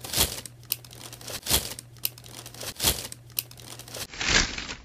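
Packaging around a new pair of basketball shoes crinkling as it is handled, in about four loud rustling swishes roughly a second and a half apart, with smaller crackles between.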